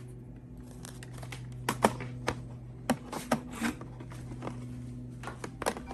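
Scattered plastic clicks and knocks from a cordless stick vacuum's battery pack being taken out of its charger and fitted into the vacuum, over a steady low hum.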